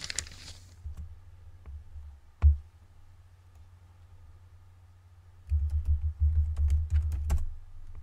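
Typing on a computer keyboard: a single sharp keystroke about two and a half seconds in, then a quick run of about ten keystrokes near the end.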